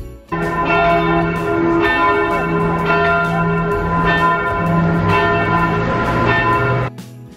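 Church bells ringing together, several bells sounding at once with fresh strikes about once a second. The ringing begins abruptly just after the start and cuts off suddenly near the end.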